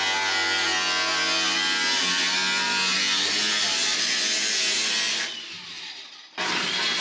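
Angle grinder cutting the sheet-steel edge of a replacement trunk floor panel, under background guitar music. Both fade out about five seconds in and come back a second later.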